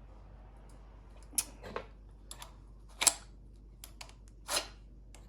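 A run of sharp clicks and clacks, with a short scrape about four and a half seconds in: hard parts of a new chainsaw being handled and fitted, going on stiffly.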